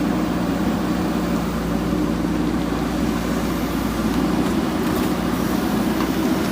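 Diesel engine of a JCB 3DX backhoe loader running steadily at working revs.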